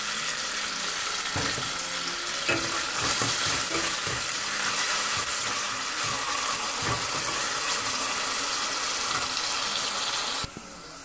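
Sliced onions sizzling in hot oil in a stainless steel pot, being sautéed toward golden, while a steel spoon stirs them and scrapes and clinks against the pot now and then. The sizzling drops away suddenly near the end.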